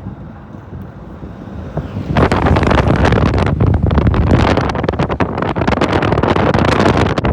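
Wind noise buffeting the microphone from a moving vehicle, over a steady low road rumble. It eases off for the first two seconds, then comes back loud and fluttering.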